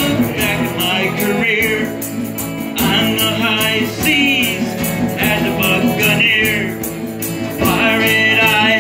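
Live acoustic folk band playing a sea shanty: strummed acoustic guitar, cello and tambourine, with a high wavering melody line coming and going on top.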